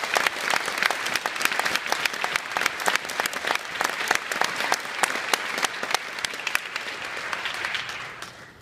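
A large audience applauding, a dense patter of many hands clapping that dies away near the end.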